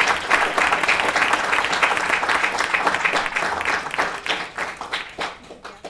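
Audience applauding, a dense patter of hand claps that thins out and fades away near the end.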